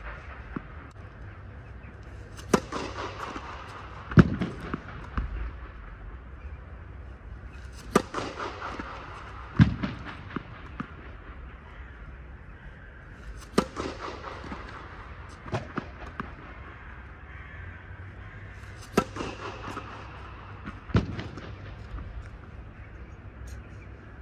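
Tennis ball struck with a racket four times, about every five to six seconds, each sharp crack echoing in a domed indoor court. A duller thud follows some strikes a second or two later. A low steady hum runs underneath.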